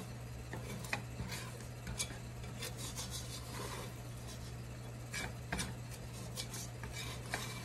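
Metal ice cream scoop scraping and rubbing against the inside of a stainless steel pot as thick no-bake cookie mixture is scooped out, with scattered light clicks, over a steady low hum.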